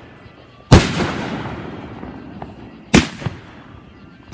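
Aerial fireworks bursting overhead: three sharp booms, the loudest a moment in, another near three seconds and one at the very end, each dying away in a fading echo.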